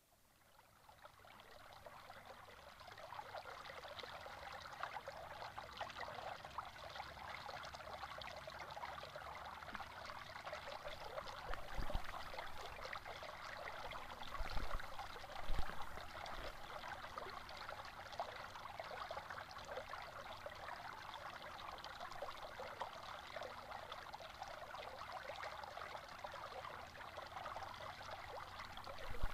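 Water trickling and lapping steadily along a kayak's hull as it glides through calm water. It fades in over the first couple of seconds, with a few soft low thumps a little before halfway.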